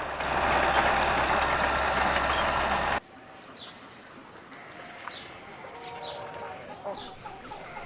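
A loud, steady rushing noise that cuts off abruptly about three seconds in. It gives way to quiet outdoor ambience with a few faint, high, bird-like chirps.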